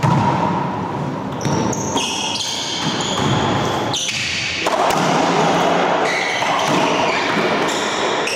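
Racquetball rally in an enclosed court: the ball cracking off racquets and walls, with sneakers squeaking on the hardwood floor.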